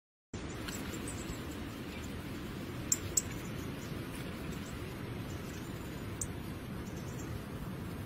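Northern cardinal giving a few short, very high chip notes: one about a second in, two close together about three seconds in, and one near six seconds, over a steady low rumble.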